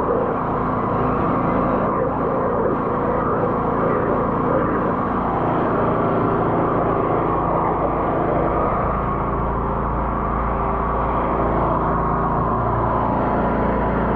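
Drain jetter's engine running steadily with a constant hum; its tone shifts slightly about six seconds in.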